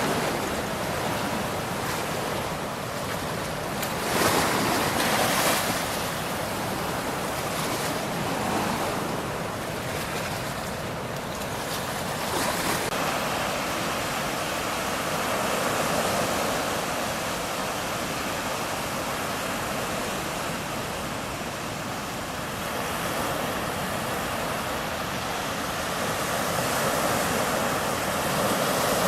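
Rushing floodwater of the high Danube, a steady wash of water noise, with wind buffeting the microphone. The wind is strongest about four seconds in.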